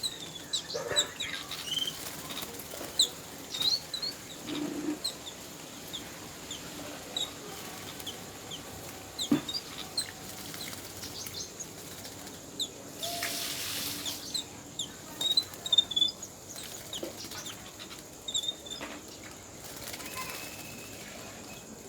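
Yellow-billed babblers calling in many short, high chirps, with brief bursts of wing flapping, the clearest about thirteen seconds in.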